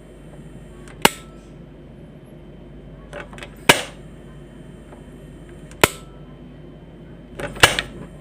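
Quantum gas stove's control knobs being turned on and off, each turn ending in a sharp igniter click: four clicks about two seconds apart, two of them led by softer clicks of the knob.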